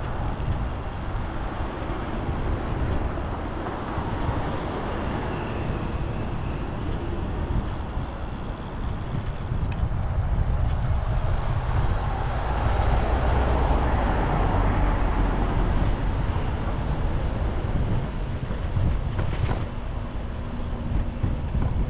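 Steady rush of wind on an action camera's microphone, with tyre and road rumble from a Brompton folding bicycle riding along a city street; it grows louder about halfway through.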